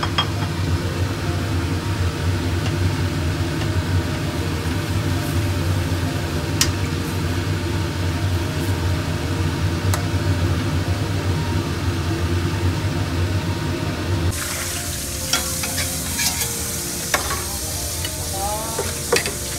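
Sliced meat simmering in liquid in a wok, stirred with a steel ladle that now and then clicks against the pan, over a steady low hum. About 14 seconds in the hum stops, leaving scattered clicks and knocks of kitchen utensils.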